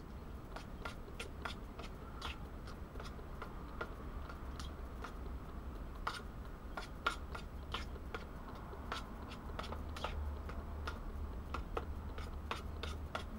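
A utensil stirring beans and sausage in a small thin-walled metal pan, making irregular clicks and scrapes about once or twice a second, over the steady low rumble of a portable gas cooker's burner.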